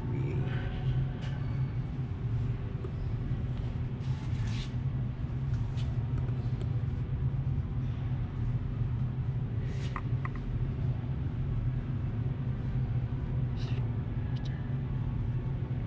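Steady low hum of indoor background noise, with a few faint clicks and knocks scattered through it and distant voices in the background.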